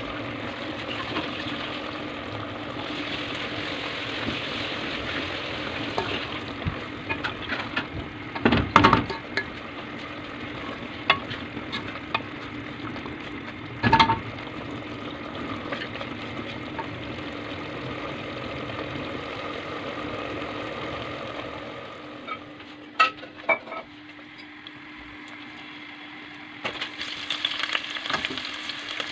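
Mince frying and sizzling in a stainless steel pot while a wooden spoon stirs it, with a few sharp knocks of the spoon against the pot. Near the end, chopped green chillies sizzle in hot oil.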